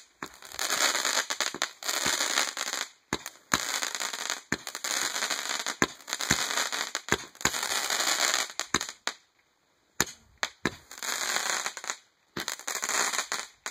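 Consumer fireworks going off in a quick string of shots: sharp pops, each followed by about a second of dense crackling. There is a short break about nine seconds in, then a few more pops and crackles.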